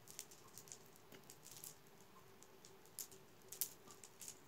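Faint, irregular light clicking of typing on a computer keyboard, with the two sharpest clicks about three and three and a half seconds in.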